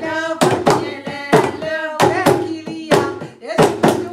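Voices singing a Moroccan wedding song in Darija to a steady beat of hand clapping, the claps sharp and several to the second.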